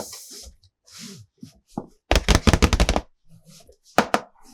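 Plastic toy being handled: a rapid rattle of about a dozen sharp clicks lasting under a second, then two sharp clicks near the end, with softer knocks between.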